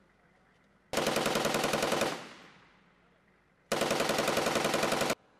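Two long bursts of automatic fire from an M2 .50-calibre heavy machine gun, each a rapid string of heavy shots. The first burst ends with its echo dying away over about a second. The second starts about a second later and cuts off suddenly.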